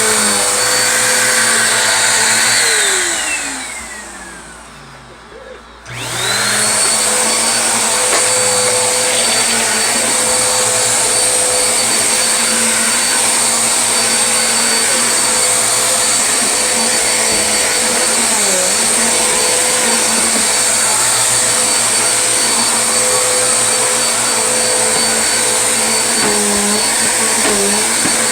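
Vacuum cleaner running, switched off about two and a half seconds in, its motor whine falling as it winds down, then switched back on about six seconds in, spinning back up quickly and running steadily again.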